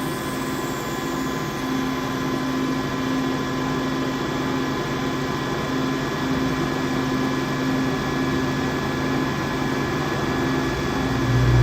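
Cincinnati R-55 universal cylindrical grinder running through its grind cycle: wheel spindle, hydraulics and work head drive give a steady hum of several held tones while the table traverses toward the other end of its stroke.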